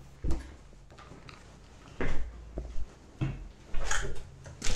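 Footsteps and knocks on the bare wooden floorboards of an empty house: half a dozen dull thumps at uneven spacing.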